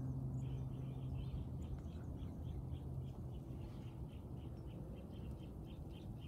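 A small bird chirping in a fast, even series of short high notes, about four or five a second. A low steady hum fades out over the first couple of seconds.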